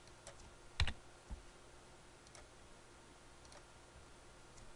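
Computer mouse clicking: one sharp click about a second in, then a duller low knock, with a few faint ticks spread through the rest.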